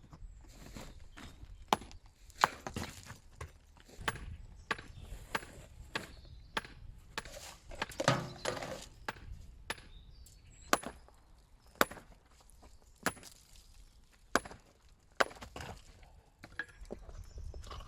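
A hand tool striking again and again in sharp, separate blows, roughly one a second with uneven spacing.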